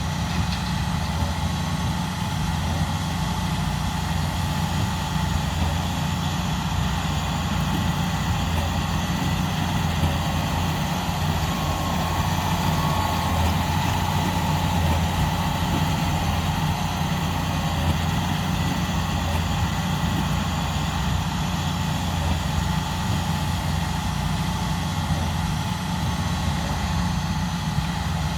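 John Deere 8RX track tractor's diesel engine running steadily, a low even drone with a faint high whine over it.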